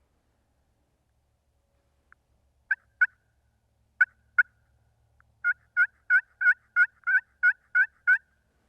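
Turkey call worked by a hunter, sounding hen yelps: two pairs of sharp notes, then a run of about nine yelps at about three a second.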